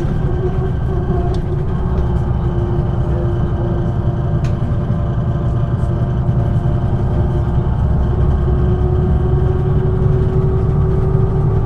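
MAN NG 313 articulated city bus's diesel engine running steadily, a low drone with a steady hum above it, getting slightly louder near the end.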